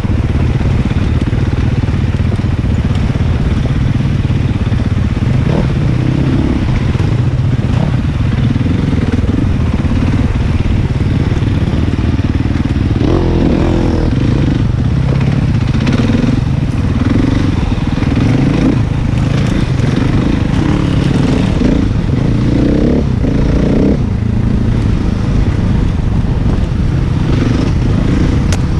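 Enduro motorcycle engine running continuously while riding a trail, its pitch rising and falling again and again as the throttle opens and closes.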